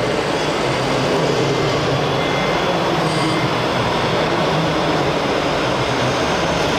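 Radio-controlled scale trucks running on a dirt course: a steady, even engine-like rumble with a constant background din.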